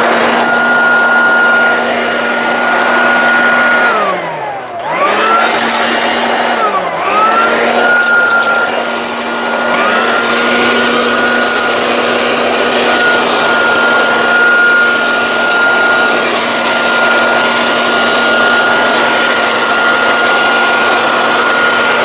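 Branco BSA 800C 2000 W electric leaf blower-vacuum running in vacuum mode, sucking up leaves: a steady motor whine over rushing air. Its pitch drops and climbs back up twice, around four and seven seconds in, and dips slightly again about ten seconds in.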